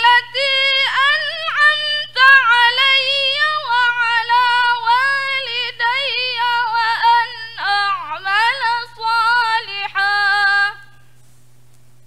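A woman reciting the Qur'an in the measured, melodic murattal style through a microphone, in long phrases of drawn-out, wavering notes. The recitation stops about eleven seconds in, leaving a low steady hum underneath.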